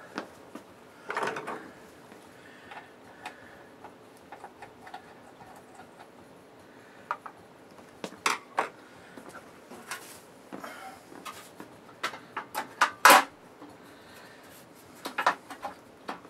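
Scattered clicks, knocks and light clatter as metal parts and the cover of a Shibaden SV-700 videotape recorder are handled and set in place, with a sharp knock about 13 seconds in the loudest.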